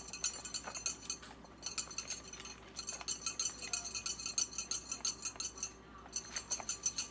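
A whisk beating a thick ketchup-based sauce in a plastic bowl: rapid clicking and ticking strokes, several a second, as the wires hit the bowl's sides. There are two brief pauses, about a second in and near the end.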